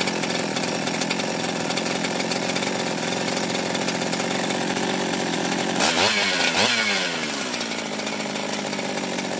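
Freshly rebuilt Jonsered two-stroke chainsaw running steadily just off idle after a carburettor mixture adjustment. Its engine speed dips and picks up briefly about six seconds in. The decompression valve has not popped closed.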